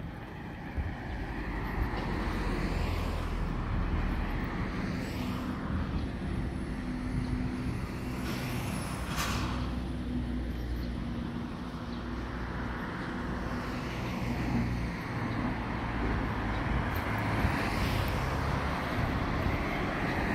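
Road traffic on a wide multi-lane road: engines and tyre noise of passing cars and trucks, swelling and fading as vehicles go by, with a brief hiss about nine seconds in.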